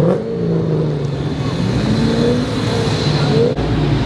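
Ford Mustang engine accelerating hard, its pitch climbing in long rising sweeps as it pulls through the gears. About three and a half seconds in it cuts suddenly to a lower, steadier engine rumble.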